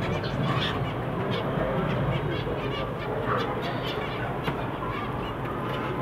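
A cage of small finches calling: many short chirps from several birds, overlapping, over a steady background hiss.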